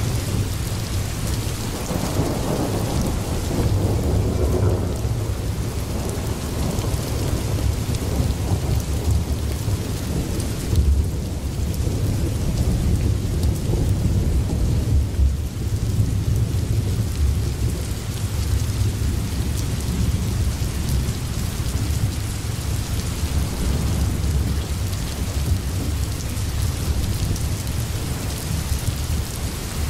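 Steady rain with a continuous deep rumble of thunder, swelling a few seconds in.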